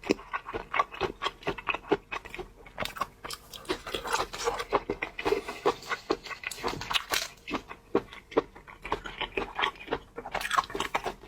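Close-miked mukbang eating sounds of a person biting and chewing seafood: a rapid, irregular run of wet clicks and smacks.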